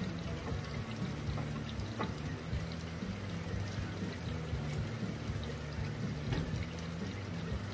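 Steady sizzling and bubbling of beef simmering in sauce in a cast iron skillet and broccoli frying on a Blackstone griddle, with a few light metal spatula taps.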